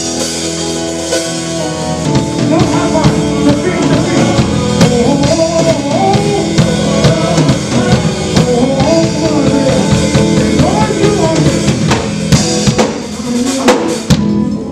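Church band music: a Yamaha S90XS keyboard holds a chord, then about two seconds in the drum kit and bass guitar come in and the band plays on with a steady beat.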